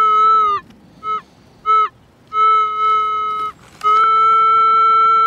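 Metal detector's target tone: a pitched beep that cuts in and out as the coil passes over a buried metal target, with two short blips a second or so in, then a longer tone, then a long steady tone over the last second and a half. It marks a strong target, the best signal in over an hour.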